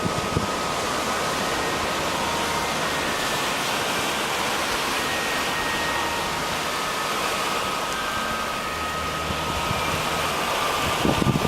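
Steady, even rush of sea water, with no single wave standing out, and a faint steady whine underneath.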